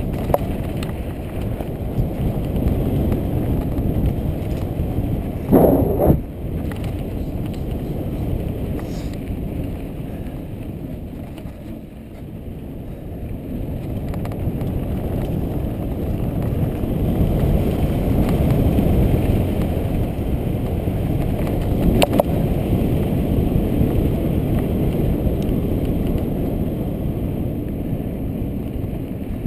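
Mountain bike riding a dirt singletrack, heard from a helmet-mounted camera: steady wind rumble on the microphone with tyres rolling over dirt and the bike rattling, the rush dipping and then building again with speed. A loud thump about six seconds in and a sharp click near the end.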